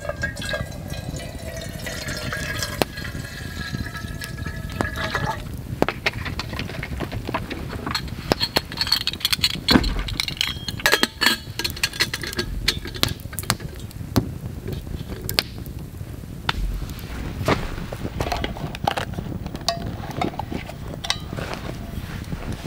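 Water poured from a plastic bottle into a small stainless steel campfire kettle, the pitch of the filling rising steadily for about five seconds. Metal clinks and clicks follow as the kettle's lid and handle are worked, over scattered small crackles.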